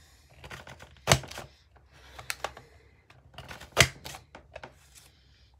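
Creative Memories Border Maker cartridge with the Zebra Stripe punch, pressed down through patterned paper. There are two loud, sharp punch snaps, a little past a second in and just before four seconds, with lighter clicks and paper rustling between them.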